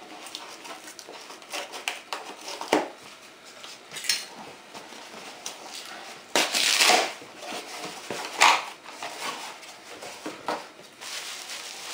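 Hands unpacking a small box of RC car parts: irregular rustling, scraping and light clinks of packaging and small parts, with louder rustles about six and a half and eight and a half seconds in.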